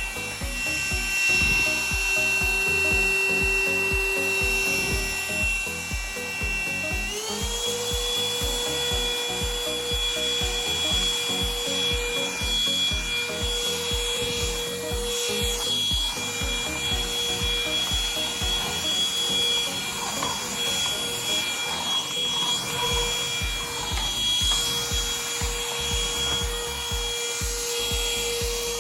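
Cordless vacuum cleaner motor running with a steady high whine that steps up in pitch about seven seconds in, like a switch to a higher power setting, over background music with a steady beat.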